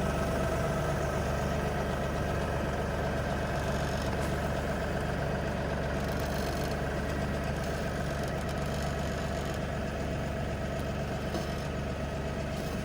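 An engine idling steadily, with a low hum and a steady mid-pitched whine over it.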